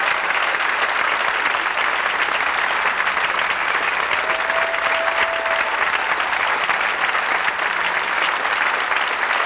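Theatre audience applauding steadily in a prolonged ovation at the end of a dance performance. One brief held call from the crowd rises above the clapping about four seconds in.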